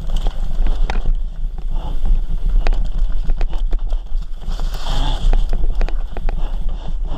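Mountain bike ridden fast down a dirt trail: wind buffeting the bike-mounted camera's microphone, with the bike's chain and frame rattling in rapid clicks and knocks over the bumps. A brief louder rush comes about five seconds in.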